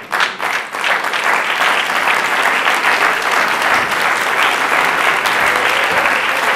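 Theatre audience applauding at the end of a play: scattered claps swell within the first second into full, steady applause.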